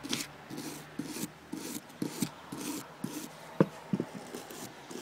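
A brush scrubbing grime off a motorcycle brake caliper's slide pin, in repeated short scraping strokes, with a couple of sharper clicks about three and a half seconds in.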